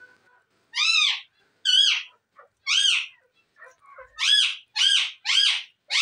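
Indian ringneck parakeets calling: about six short, loud calls, each rising and then falling in pitch, with the last three in quick succession near the end.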